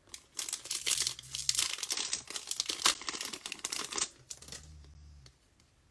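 Foil wrapper of a Bowman Chrome trading card pack being torn open and crinkled, a dense run of crackling from about half a second in until about four seconds, then trailing off.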